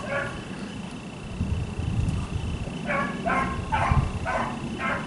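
Hunting beagles baying as they run a track: one bark right at the start, then a steady run of barks about two a second from about three seconds in, over a low rumble.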